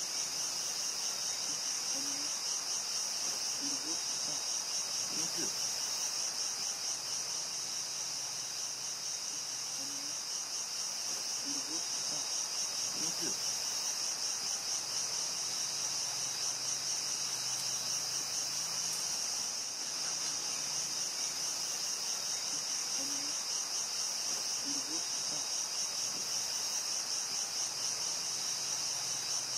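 Rainforest insects chorusing: a steady, high-pitched, fast-pulsing buzz, with a few faint short low calls now and then.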